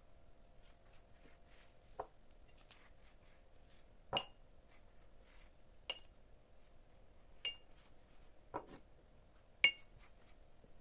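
A pastry brush clinking against a small ceramic bowl of melted butter as it is dipped: six light clinks spread out, several with a brief ring, over a faint steady hum.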